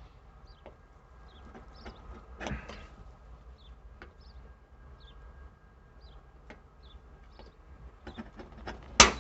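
Center punch being struck on the truck's metal to mark a hole for a seat-belt mount: one sharp metallic strike near the end, after several seconds of faint handling clicks and a softer knock.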